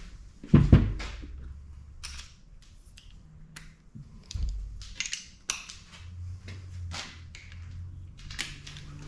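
Metal hand tools and engine parts clinking and knocking irregularly, with two heavier thumps, about half a second in and about four and a half seconds in.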